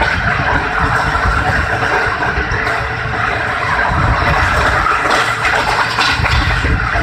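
Steady running noise of a passenger train coach at speed, heard at an open door or window: wheels on the rails and rushing air, with uneven low rumbling throughout.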